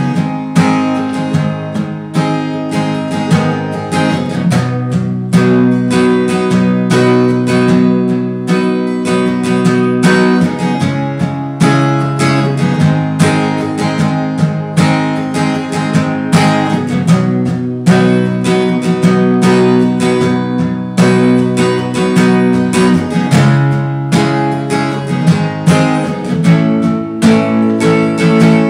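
Steel-string acoustic guitar with a capo, strummed in a steady rhythm through changing chords, with no singing.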